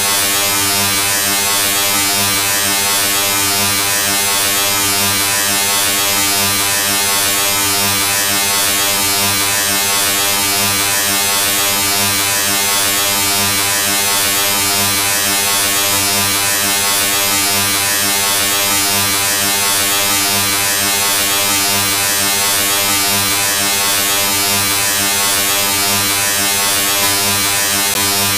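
A steady electric buzz with a low hum, unchanging in pitch and loudness.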